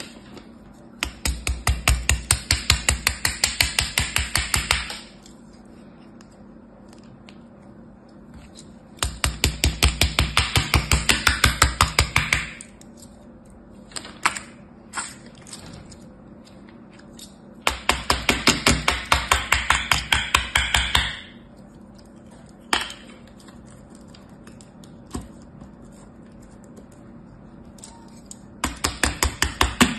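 Rapid, even tapping, several taps a second, in bursts of three to four seconds that come four times, with a few single clicks between them.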